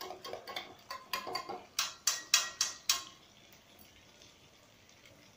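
Metal spoon clanking and scraping against steel cookware, with a run of about five sharp clanks in the middle.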